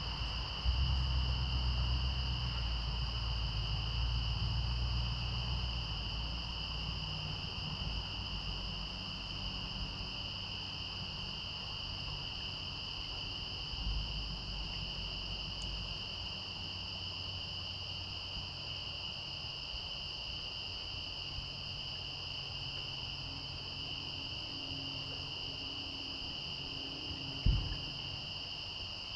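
Crickets chirping in a steady, continuous chorus at two high pitches. A low rumble runs under it for the first several seconds, and there is one sharp knock near the end.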